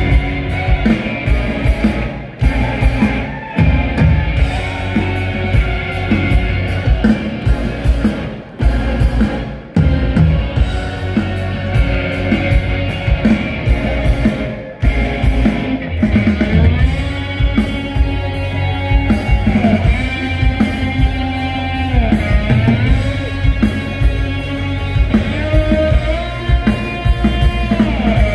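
A rock band playing loud and live, with drums, bass, and electric and acoustic guitars. Held notes that slide up and down come over the top from about halfway through.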